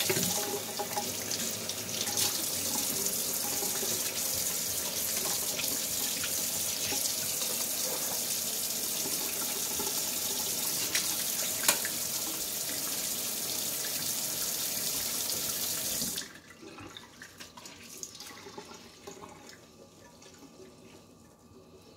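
Kitchen tap running, its stream splashing steadily into a stainless steel sink basin. About three-quarters of the way through the tap is shut off suddenly, leaving only faint small ticks and knocks.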